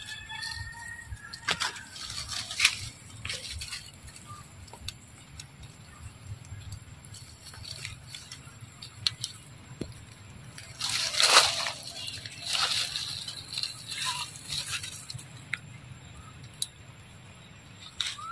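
Leaves and foliage rustling and brushing close against the microphone, loudest in a few noisy bursts from about eleven to fifteen seconds in, with scattered small clicks and snaps. A couple of brief high chirps come near the start.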